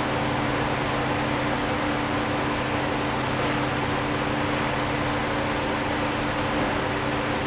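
Ultrasonic aroma diffuser running: a steady low hum with an even hiss.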